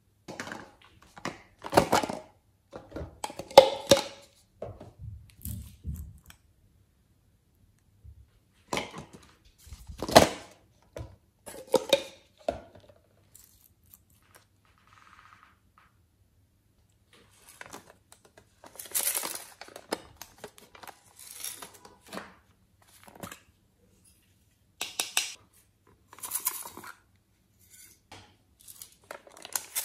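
Close-up handling sounds of small plastic glitter bottles: scattered sharp clicks and knocks in the first half as a bottle is opened, then lighter crackling as glitter is shaken out onto slime.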